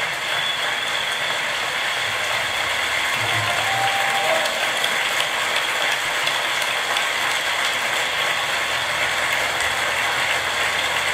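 Steady, dense crackling noise, even in level throughout.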